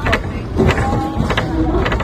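Hong Kong double-decker tram running on its rails, a steady low rumble with several sharp knocks and rattles from the car.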